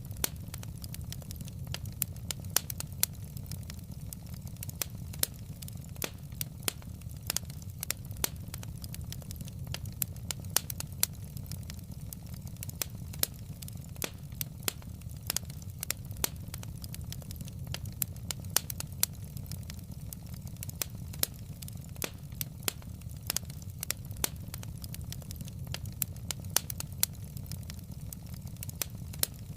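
Wood fire in a fireplace crackling, with irregular sharp pops from the burning logs over a steady low rumble.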